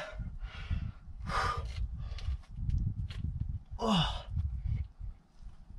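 A climber's short, forceful breaths of effort while pulling through moves on a steep overhang, about four of them, the one about four seconds in voiced as a brief falling grunt. A low rumble runs underneath.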